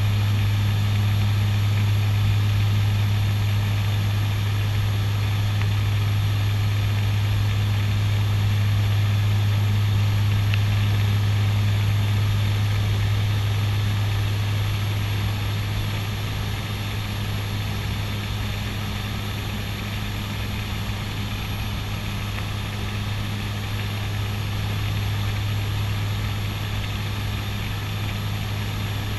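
Twin Garrett TPE331 turboprop engines and propellers of a CASA NC-212-200 Aviocar droning steadily in cruise, heard inside the cockpit: a strong low hum over a steady hiss, easing slightly in loudness about halfway through.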